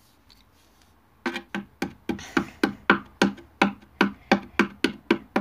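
Rapid, even knocking on a chipboard panel, about four strikes a second, starting about a second in: a hand tool driving a fastener into the board's edge.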